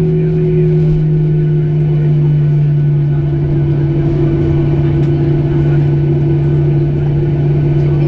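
Boeing 737 engines running at taxi idle, heard inside the cabin as a loud, steady drone with a low hum and a second hum above it. Both settle slightly lower in pitch in the first couple of seconds, then hold steady.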